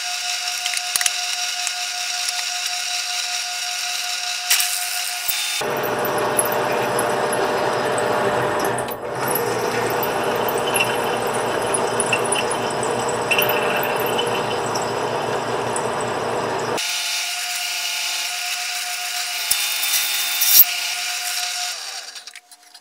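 Bench drill press drilling into steel, the bit cutting with a steady whine. For about eleven seconds in the middle it changes abruptly to a lower, coarser grinding, then returns to the whine; near the end the drilling stops. The steel is what the machinist thinks has work-hardened.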